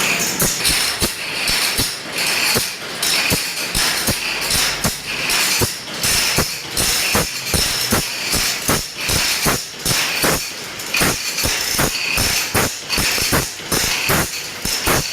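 Hand work with a steel tool on the teeth of a two-man crosscut saw: quick, regular metallic strokes, about three a second, with a bright hiss between them.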